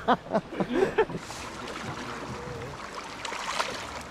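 Brief indistinct voices, then the steady rush of moving river water, with a few sharper splashes about three seconds in.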